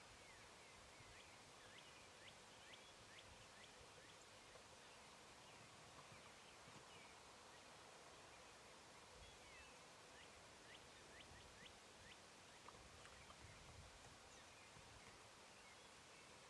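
Faint woodland birdsong over near silence: quick runs of high, falling chirps, about a second in and again around ten seconds in.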